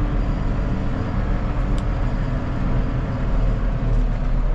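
Tractor engine running steadily with a low hum while the tractor reverses, a trailed sprayer hitched behind.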